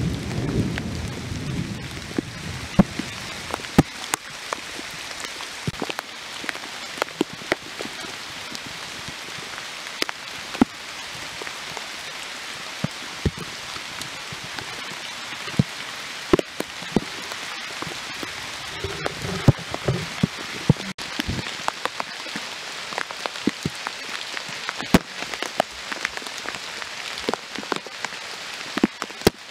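Steady rain falling on rainforest foliage, with many sharp, irregular taps of large drops landing close by. A low rumble of thunder fades out in the first couple of seconds.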